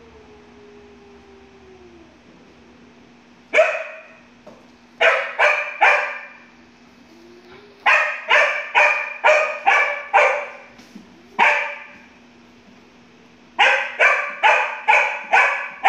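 A dog barking in quick runs: a single bark about three and a half seconds in, then runs of three, about seven and five sharp barks, each dying away with a short ring. A faint steady hum sits underneath.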